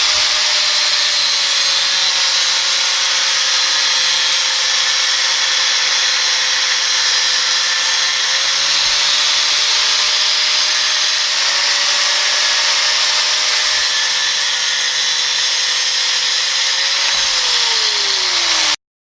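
Angle grinder with a diamond cut-off wheel cutting metal: a loud, continuous hissing grind over a steady motor whine. The whine's pitch wavers and sags near the end, as the motor slows under load, and then the sound cuts off abruptly.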